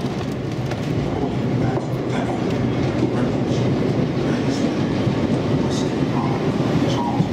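Electric suburban passenger train running into the platform: a steady rumble of wheels and running gear on the rails, growing a little louder about a second in.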